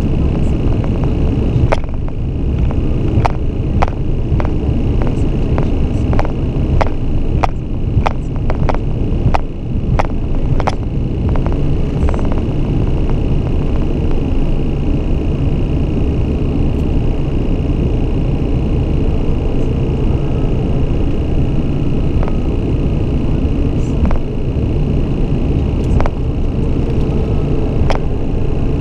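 Loud, steady in-cabin drone of a Beechcraft King Air 200's twin turboprops, with a steady high whine above the low rumble. Scattered sharp clicks run through the drone, many in the first half and a few later.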